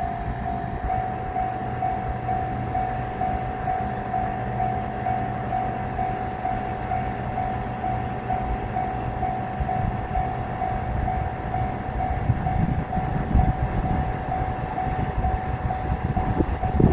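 Japanese railroad crossing alarm ringing in a fast, even, repeating electronic ding. Under it a low rumble grows louder over the last few seconds as the diesel train approaches.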